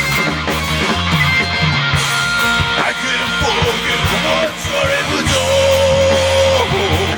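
Rock band playing live with guitars, bass and drums. A melody line slides about and then holds one long note near the end.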